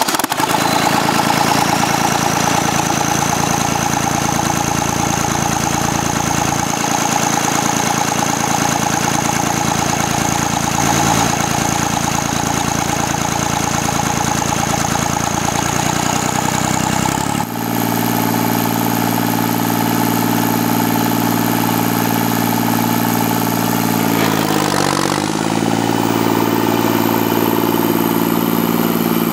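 Carlton stump grinder's engine running steadily just after starting, with a high whine over it. About two-thirds of the way through the whine stops suddenly and the running note changes; a little later the pitch dips briefly and recovers, with the cutter wheel spinning near the end.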